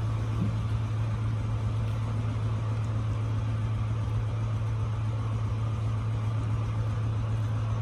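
A steady low hum of a running motor, unchanging throughout.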